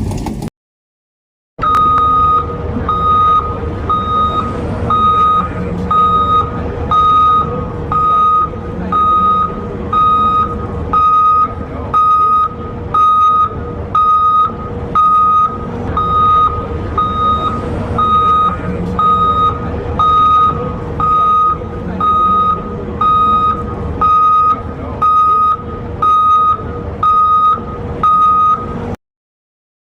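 Travel alarm beeping about once a second, a steady single-pitched tone, over the steady running of a Caterpillar 325D FM forestry machine's diesel engine.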